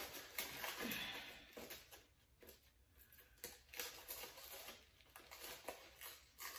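Faint, irregular rustling and crinkling of white packing material being pulled and handled in a cardboard box during unpacking.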